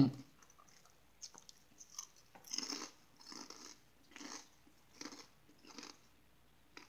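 A person biting into a crunchy chip and chewing it. Short crunches come about once a second.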